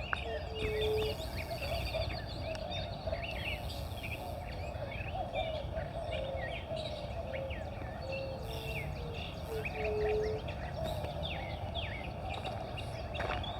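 Many wild birds calling and chirping at once, a dense chorus of short high chirps over a band of lower, wavering calls, with a few short low notes.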